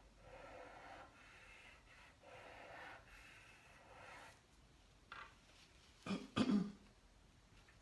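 Soft, scratchy strokes of chalk pastel rubbed over paper, three in a row. Then, about six seconds in, a short, loud throat clearing.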